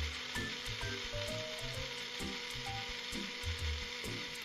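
Small electric mixer grinder running steadily, blending peeled boiled tomatoes and chilies with a little water into a smooth paste.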